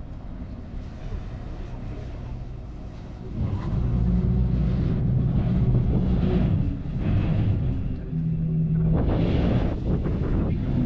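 Vehicle engine running with a steady low hum that gets clearly louder about three and a half seconds in, its pitch shifting a little as it goes.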